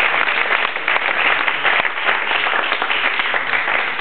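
A group of people applauding, many hands clapping densely and steadily.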